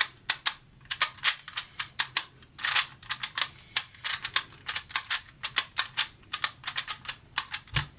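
QiYi magnetic clock puzzle being speed-solved: quick, irregular clicking of its dials and pins as they are turned and pushed, several clicks a second with brief pauses. A single dull thump comes near the end.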